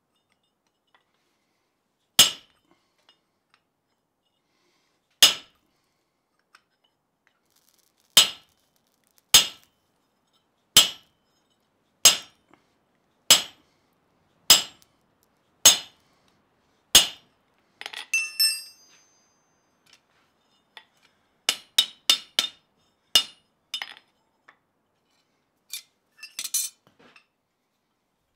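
Hand hammer striking a slot punch driven into a hot round bar in a bottom swage on the anvil: about ten sharp, ringing single blows a second or more apart. About two-thirds through comes a brief metallic clatter, then quicker, lighter strikes in small groups.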